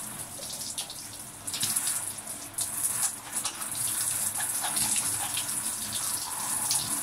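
Shower water running and splashing onto hair and into the bath, with irregular splatters as the hands work through it: a conditioning mask being rinsed out of the hair.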